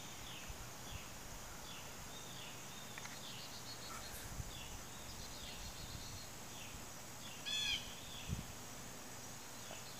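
Outdoor ambience with a steady hiss and birds chirping: a string of faint, short falling chirps, and one clearer chirp about three-quarters through. A soft low bump follows just after the clearer chirp.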